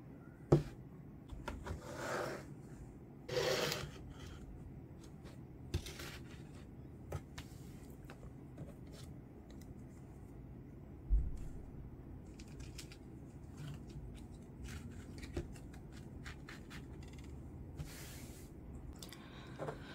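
Scattered light knocks and clicks with a couple of brief rustling scrapes, typical of objects being handled by hand; the loudest knocks come about half a second in and about 11 seconds in.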